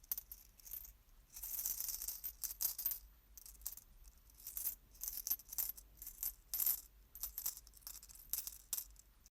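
Irregular rattling and clinking: many sharp, bright clicks coming in uneven clusters.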